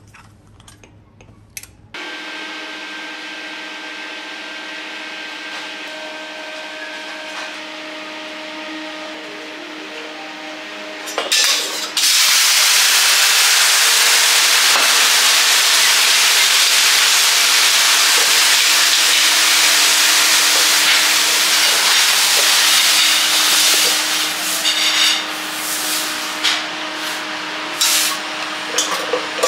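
Water on a hot steel teppanyaki griddle sizzling and hissing loudly for about twelve seconds, boiling off as the plate is cleaned, then dying down to lighter scraping and wiping noises. A steady hum with a faint tone runs underneath from a couple of seconds in.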